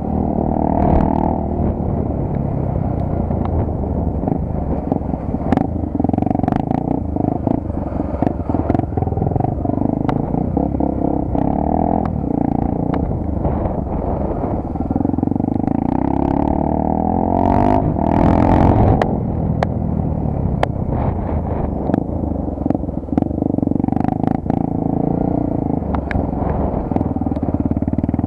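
Honda Tornado 250's single-cylinder four-stroke engine running while riding, its pitch rising and falling several times as the rider speeds up and shifts, with scattered clicks and rattles over it.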